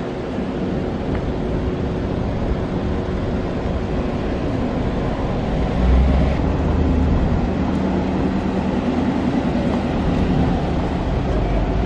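Mercedes-Benz G550's V8 engine running as the SUV drives slowly, a steady low rumble that grows louder about six seconds in.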